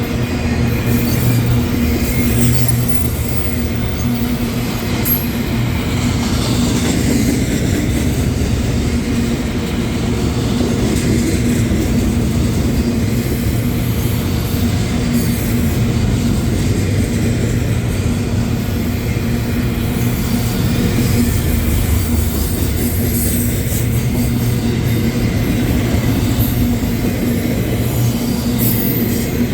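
Freight train cars rolling past, a steady rumble of wheels on the rails that runs on without a break.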